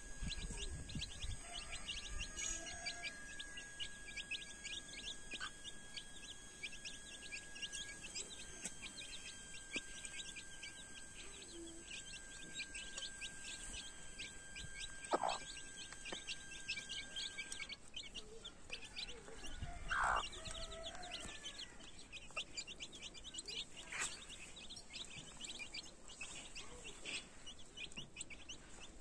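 A brood of young chicks peeping rapidly and constantly while they feed, with a couple of louder single calls about fifteen and twenty seconds in.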